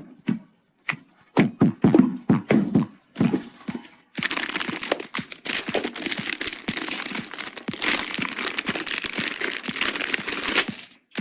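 Several sharp taps and knocks of hardware or boxes being handled, then about seven seconds of continuous crinkling and tearing of packaging being unwrapped.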